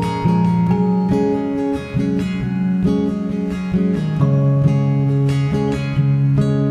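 Background music: an acoustic guitar strumming chords at a steady rhythm.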